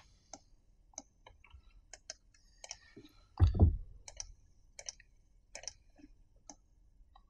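Irregular clicks of a computer mouse and keyboard as objects are selected and moved in software, with one short, louder vocal sound like a brief hum about three and a half seconds in.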